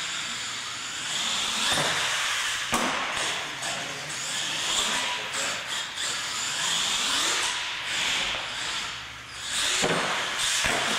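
RC monster truck's motor whining, its pitch rising and falling repeatedly as the truck speeds up and slows, with tyre hiss on concrete. A couple of sharp knocks about two and three seconds in as it hits ramps or obstacles.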